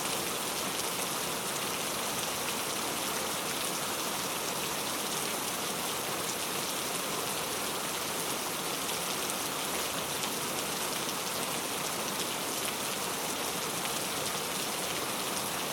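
Steady rain falling, an even hiss with fine patter of drops on a surface.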